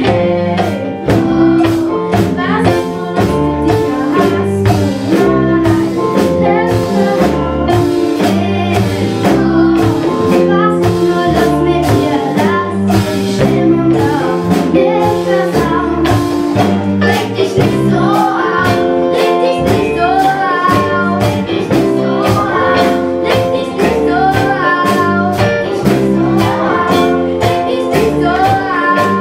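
A children's school band playing a pop song live, with a steady drum beat and band accompaniment and young voices singing over it.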